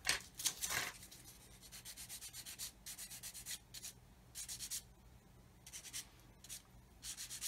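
Sanding stick rubbed in quick back-and-forth strokes over a small plastic model-kit part, cleaning up the part after it was cut from the sprue. The strokes come in short runs, several a second at their quickest, with pauses between runs.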